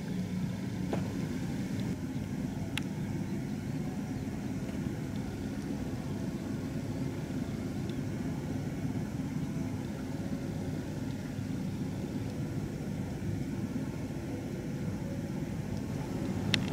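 Steady low engine drone of an approaching cement carrier, with a sharp click near the end.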